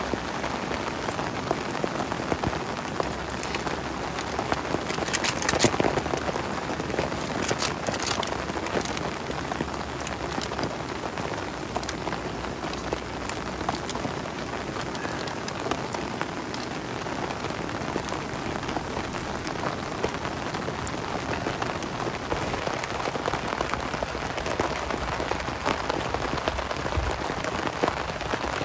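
Steady heavy rain falling on a tarp shelter: a constant hiss of rain with many separate drop hits. There are a few louder patches of hits about five and eight seconds in.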